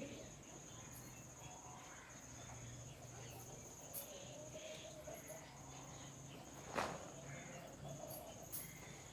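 Insects, crickets by the sound, chirring faintly in a high, steady trill broken by short gaps, with one sharp click about seven seconds in.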